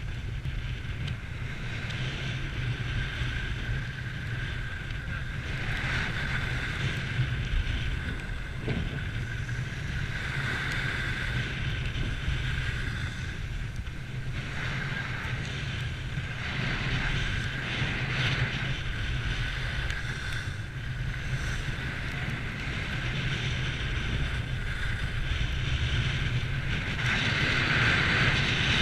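Wind noise buffeting the microphone during a downhill ski run, over the hiss of skis sliding and scraping on groomed snow that swells every few seconds and is loudest near the end.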